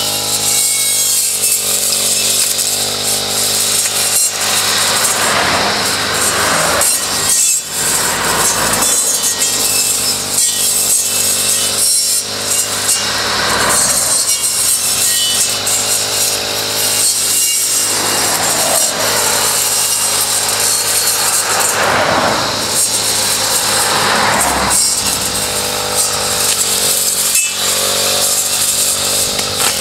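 Brush cutter fitted with an Ergo-Schnitt safety grass-cutting blade, running steadily while the blade cuts through grass, with swells of louder cutting noise every few seconds as it bites into the sward.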